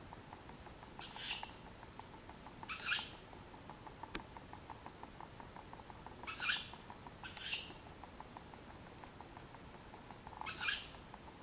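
Unidentified animals calling from the trees at night: five short, squeaky, rasping 'meep' calls spaced a second or more apart, over a faint, fast, steady ticking.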